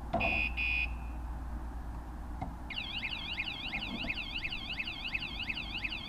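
Motorcycle motion-sensor alarm going off as the bike is moved: two short high beeps, then about two and a half seconds in a rapid warbling siren starts and keeps sounding.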